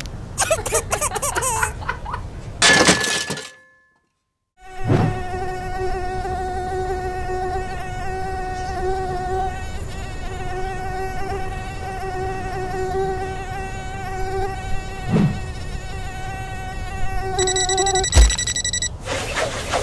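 Small quadcopter drone's propellers buzzing with a steady high hum, with a short silent break about four seconds in. Near the end there is one sharp hit as the drone crashes.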